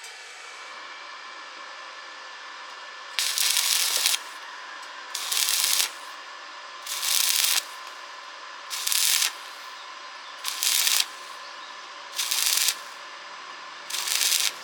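Stick welding arc laid down in short pulses: from about three seconds in, the arc crackles and hisses for under a second, breaks off, and is struck again about every second and a half, seven times, over a steady background hiss.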